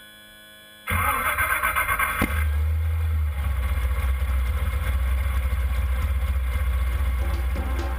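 Ski race boat's twin-turbo V8 engine running with a heavy, steady low rumble, cutting in abruptly about a second in.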